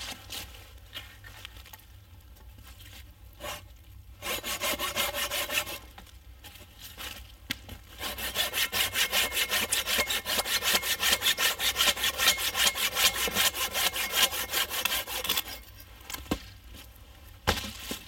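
Hand saw cutting through wood in quick, even back-and-forth strokes: a short spell about four seconds in, then a longer steady run from about eight seconds to fifteen.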